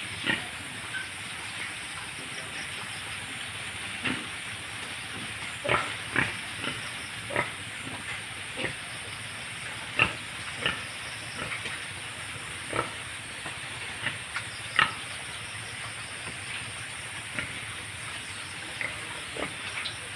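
Pigs giving short, irregular grunts and squeals over a steady background hiss.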